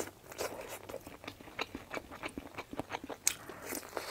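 Close-miked chewing of soft sauced tofu pieces: irregular mouth clicks and smacks as the tofu is bitten and chewed.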